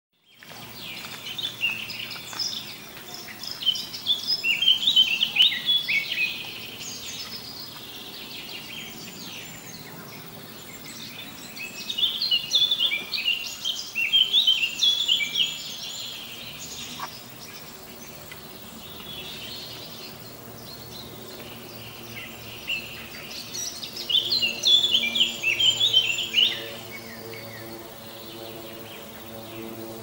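High-pitched chirping calls in rapid, stepped trills, coming in three loud bouts with quieter stretches between them.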